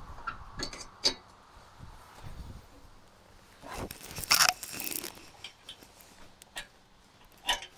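Hand assembly of a steel rake-lift hitch: scattered metal clicks and clinks as a pin is fitted, with a louder scraping rustle a little under four seconds in that lasts about a second.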